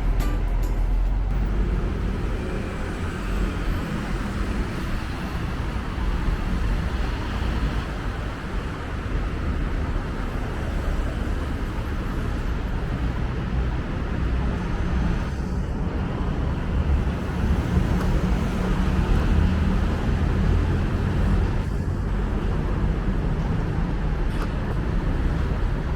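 Steady road traffic on a busy city street: cars and buses running past in a continuous low drone.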